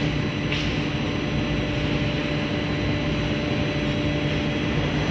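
Two spindles of a twin-head CNC router running and cutting into a board: a steady machine noise with a few constant thin tones held throughout.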